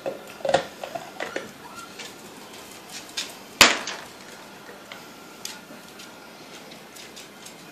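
Ice cubes clicking and clattering on a ceramic tile floor, with one sharp, loud crack about three and a half seconds in.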